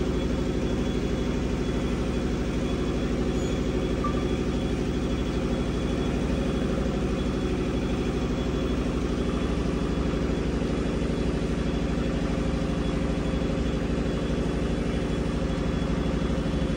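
An engine idling steadily, an even running sound with a fast regular pulse and no change in speed.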